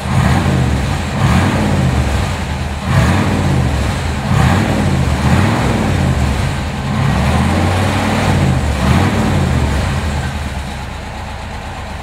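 1955 Ford Thunderbird's 292 cubic-inch V8 revved repeatedly through its bumper-exit dual exhaust, the engine note rising and falling with each blip of the throttle, then settling back to idle about ten seconds in.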